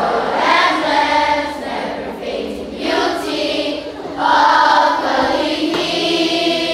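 A group of children singing together in unison, with long held notes.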